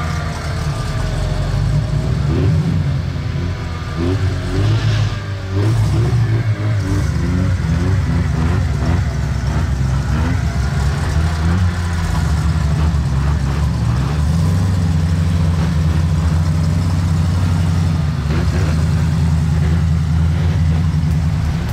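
An offroad Jeep's V8 engine revving through a flooded clay mud hole, the revs rising and falling again and again, with a rush of splashing water about five seconds in.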